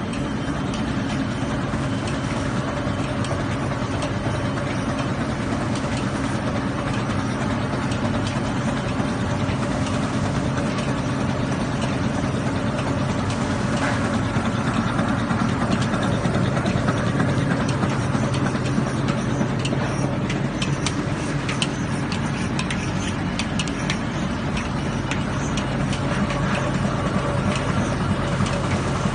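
Four-colour central-drum flexographic printing press running while printing plastic film: a steady mechanical hum with a low drone from its drives and rollers, and faint light clicks now and then in the second half.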